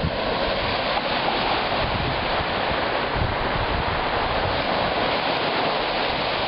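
Small waves washing and breaking onto a sandy beach in a steady hiss of surf, with wind buffeting the microphone in low, irregular gusts.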